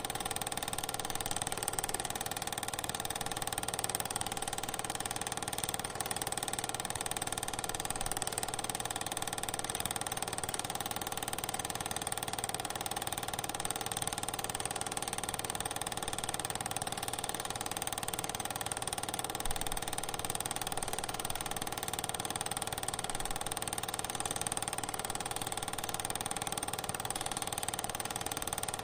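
A steady machine hum with several held tones, unchanging throughout.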